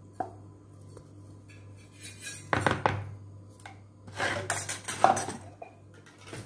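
A metal utensil scraping and knocking against a steel pan while thick cooked semolina mixture is scraped out, in two bursts about two and a half and four and a half seconds in.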